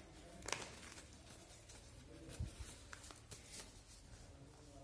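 A sheet of paper being folded and creased by hand on a wooden tabletop: faint rustling and crinkling. There is a sharper rustle about half a second in, a soft low knock about halfway through, and a run of quick rustles a little later.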